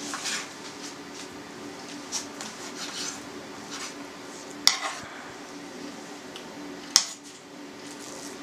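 Kitchen knife cutting raw pork into small chunks on a cutting board: soft, irregular taps of the blade, with two sharp knocks on the board, one about halfway through and one a couple of seconds later. A faint steady hum runs underneath.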